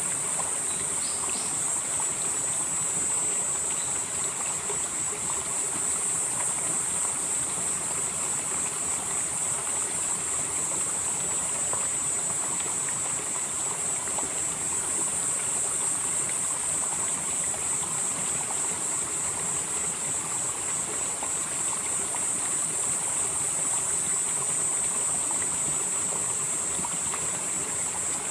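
Valley stream flowing steadily over rocks, with a constant high-pitched insect chorus running through it.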